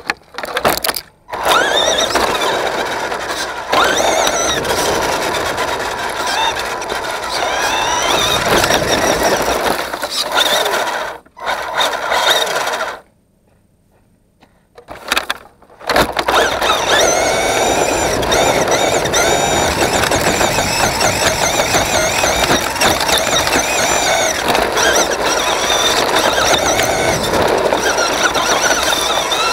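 Tamiya Lunch Box RC truck's electric motor and gearbox whining as it drives, the pitch rising and falling with the throttle, picked up by a camera mounted on the truck. It cuts out briefly about a second in and again around eleven seconds in, then goes quiet for about three seconds before running steadily again.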